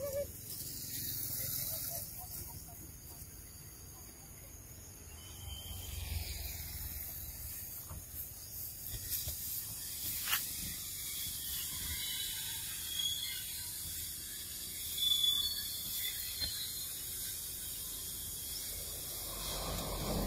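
Outdoor forest ambience: a steady high-pitched insect buzz with a few faint chirps, and a single sharp click about ten seconds in.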